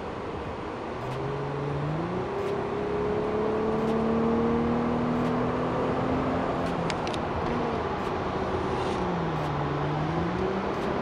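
Naturally aspirated six-cylinder engine of a Mercedes-Benz C250 (W204) accelerating, heard from inside the cabin: the engine note climbs steadily and grows louder from about a second in, then drops and climbs again near the end.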